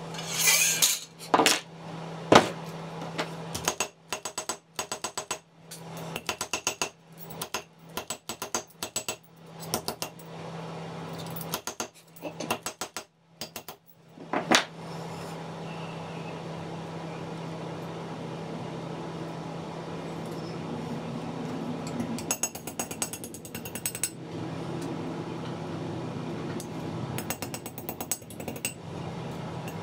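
Hand snips cutting a metal strip, a series of sharp snips and clicks. Later comes hammering on sheet metal over a small bench anvil, in quick runs of ringing strikes near the end. A steady low hum sits underneath.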